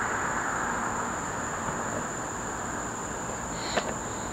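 Insects, likely crickets, chirring as one steady high tone over a broad background hiss. A single sharp click sounds near the end.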